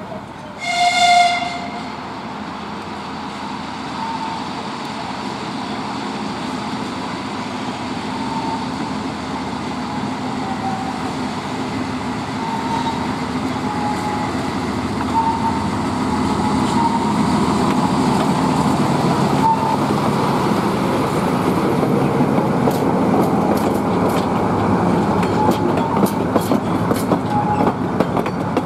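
A short horn blast about a second in, then a narrow-gauge TU7A diesel locomotive and its train rolling past, growing gradually louder, with brief wheel squeals and rail-joint clicks that thicken near the end.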